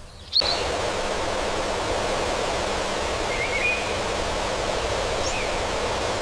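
A steady rushing noise, like running water or wind, begins abruptly about half a second in. A couple of faint bird chirps sound over it.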